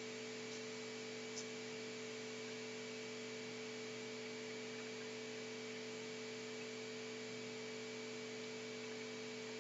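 Steady electrical hum over a faint hiss: the recording's background noise, with a single faint click about a second and a half in.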